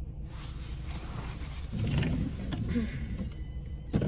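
Inside a car: a steady low rumble, with soft knocks and rustling about two seconds in, a brief click, and a faint thin tone near the end.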